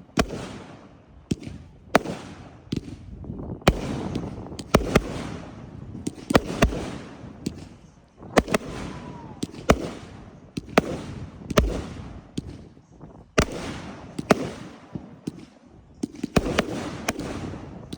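Aerial fireworks bursting in a steady barrage: a string of loud bangs and booms, about one or two a second, each followed by crackling and a fading echo.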